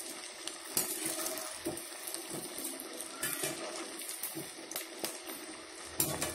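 Potato patties deep-frying in hot oil in a kadhai: a steady bubbling sizzle, with a slotted metal spatula clicking against the pan a couple of times as they are turned.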